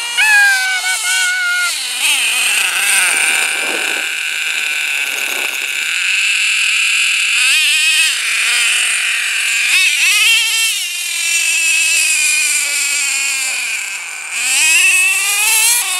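Nitro RC truck's HPI F4.6 two-stroke glow engine running hard, its high pitch rising and falling over and over as the throttle is worked, with sharp climbs about halfway through and again near the end.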